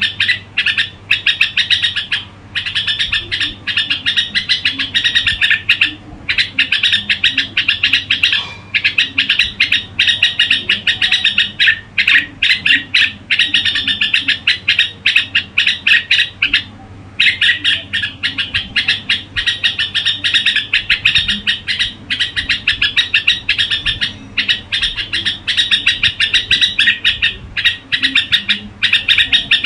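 Red-whiskered bulbul singing in a rapid, almost unbroken run of short chirping notes, with brief pauses every few seconds.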